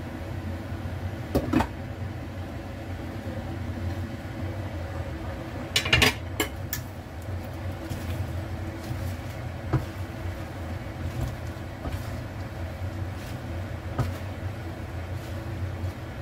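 Steady low hum under the cooking, with a quick clatter of a metal-rimmed glass lid being lifted off a wok about six seconds in, then light scrapes and taps of a plastic spatula stirring cabbage in the pan.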